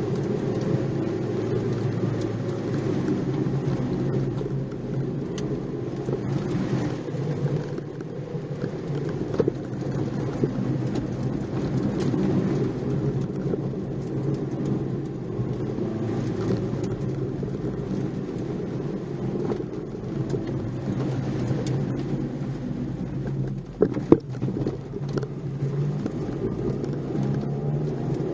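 Nissan March 12SR's 1.2-litre four-cylinder engine running under way, heard from inside the cabin, with steady tyre and road noise and a rough crackle over the road surface. One sharp knock comes near the end.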